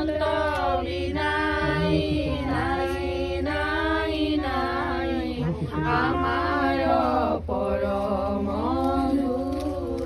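Group of women singing a traditional Assamese wedding song (biya naam) together in a chant-like unison, with long held notes in phrases of about a second and a short break about two thirds of the way through.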